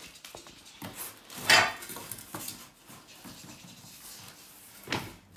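Rustling and handling of the packing of a home multi gym, its plastic-wrapped parts and cardboard box, with a loud sharp crackle about one and a half seconds in and a shorter one near the end.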